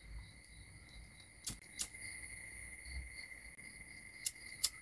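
A few short sharp clicks from a handheld lighter being flicked to light a bundle of incense sticks, two about a second and a half in and two more near the end, over a faint steady high-pitched background drone.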